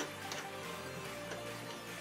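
Background music with held notes over a bass line that changes about a second in, plus a few light percussion hits.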